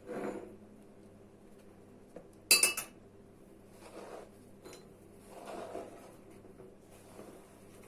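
Diced onion being scraped from a cutting board into a bowl: soft scraping and rustling several times. About two and a half seconds in comes one sharp, ringing clink of a utensil striking the dish.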